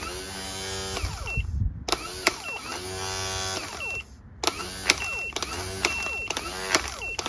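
Johnson Electric starter motor from a Kohler Courage engine, bench-run off load in several short bursts: an electric whine that sweeps up as it spins up, with sharp clicks between runs. It spins freely and responsively, a sign that the motor's internals are fine and that the slipping lies in the Bendix gear under load.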